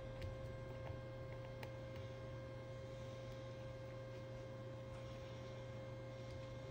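Steady electrical hum with a few faint small clicks of a precision screwdriver working the tiny screws inside a Google Pixel 3 smartphone, the clearest about a second and a half in.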